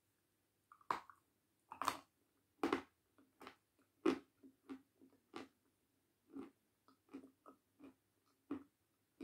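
Crunching as a person bites into a hard white chunk and chews it: a few loud bites about one, two, three and four seconds in, then quieter crunching chews about twice a second.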